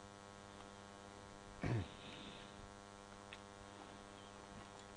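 Steady electrical mains hum, with a short falling sound about a second and a half in and a faint click later.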